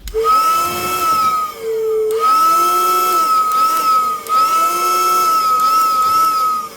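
Homemade PVC pipe steam-style whistles blowing: a loud, steady high whistle held in three long blasts, dropping twice to a short lower note between them, over a rushing hiss.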